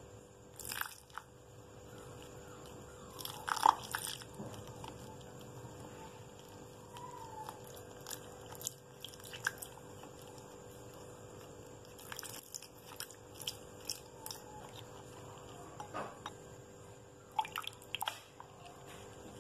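Metal spoon stirring a thick flour-and-water batter in a glass bowl: scattered scrapes and clinks against the glass, loudest about four seconds in, with a wet squelch of batter between them.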